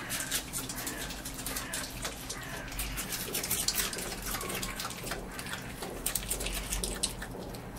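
An otter chewing carrot pieces with its mouth open: wet crunching and smacking in quick, irregular clicks.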